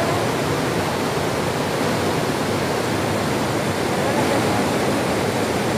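Waterfall in full spate: a steady rush of muddy, fast water pouring over rocks and rapids.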